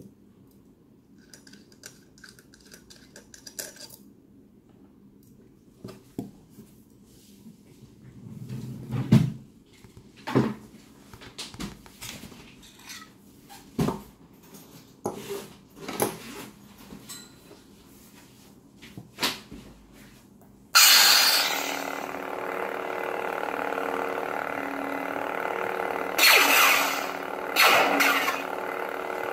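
Metal parts of a lightsaber hilt clicking and knocking as they are handled and taken apart. About 21 seconds in, the Plecter Labs Crystal Focus V9 sound board ignites with a sudden loud burst and settles into a steady electric hum through the hilt's built-in speaker, swelling louder twice near the end.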